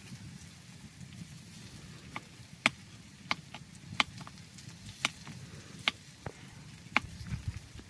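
Knife chopping on a cutting board: single sharp strokes roughly once a second, starting about two seconds in.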